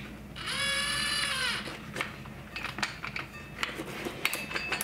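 DeWalt 12-volt cordless drill with a large hole saw mounted spinning briefly for about a second, its motor whine dropping in pitch as the trigger is released. Light clicks and knocks of the hole saw and drill being handled follow.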